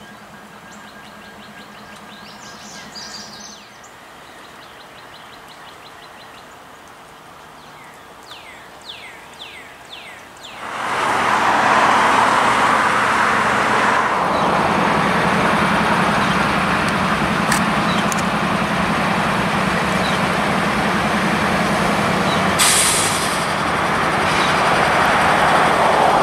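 Birds chirping over a faint steady hum. About eleven seconds in, a loud, steady rumble and rail noise takes over: a Norfolk Southern freight train, a diesel locomotive with covered hopper cars, rolling past.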